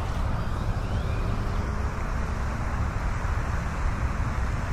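Steady outdoor background noise with a heavy low rumble and no distinct events.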